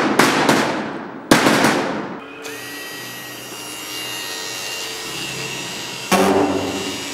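A theatrical machine-gun noise machine worked by a wooden lever gives a few loud rattling bursts, then cuts off about two and a half seconds in. A small engraving motor then runs against an iron sheet in a steady buzzing rasp, the stage imitation of a fighter plane's engine, louder about six seconds in.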